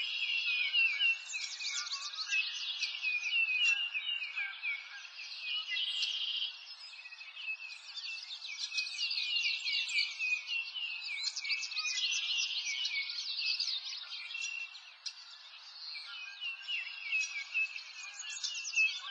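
Many birds chirping and trilling together, a dense chorus of short high chirps overlapping without a break.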